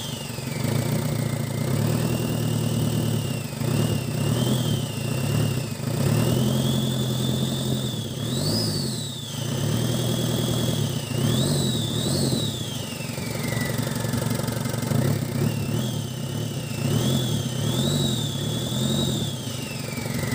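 Diesel engine running on a mechanical VE-type injection pump converted from electronic control. It is revved up and let back down several times by hand at the pump, with a whine that rises and falls with the revs.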